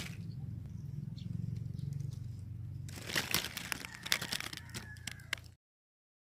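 Dry leaves rustling and crackling in the nest litter around newborn puppies, starting about halfway through over a steady low hum. All sound cuts off abruptly near the end.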